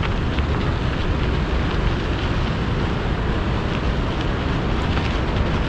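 Steady wind rushing over the microphone of a camera on a moving bicycle, along with the rumble of the bike rolling over a rough dirt track.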